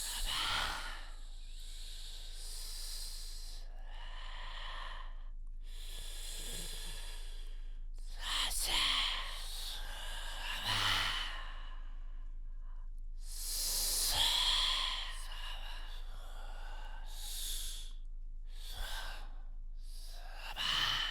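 A human voice imitating ocean waves: breathy hissing rushes that swell and fade one after another, with short pauses between them.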